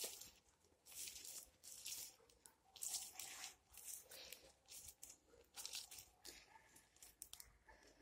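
Faint footsteps through low plants on the forest floor, irregular soft rustles about once a second.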